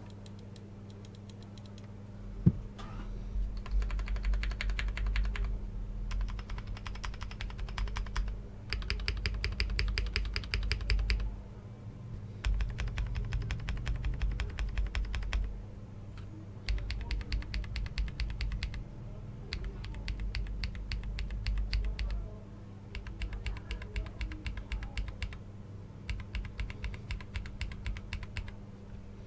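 Typing on a Glorious GMMK Pro mechanical keyboard with a POM plate and Cherry-profile keycaps: runs of rapid keystrokes a few seconds long with short pauses between, starting with a sharp clack a couple of seconds in.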